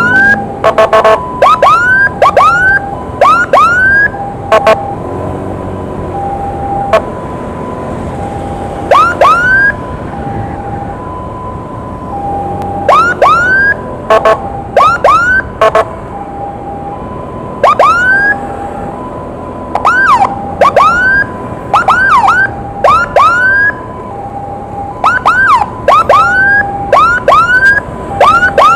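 Emergency vehicle sirens during an ambulance escort: a two-tone hi-lo siren alternating steadily between two notes, overlaid by short rising whoops sounded again and again, often two or three in quick succession. A steady low rush runs underneath.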